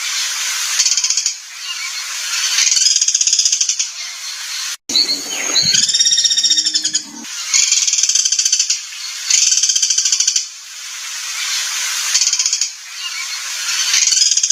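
Songbird recording of harsh 'materi kasar' masteran song: rapid, buzzy trilled phrases repeating every second or two. About five seconds in, an abrupt cut brings a different, lower call lasting about two seconds before the trills resume.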